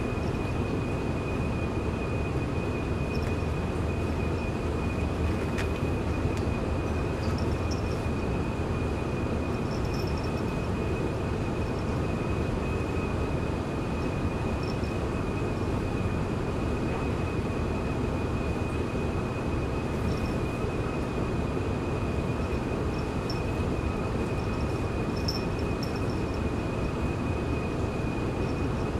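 A steady low rumble with a thin, steady high whine above it that does not change.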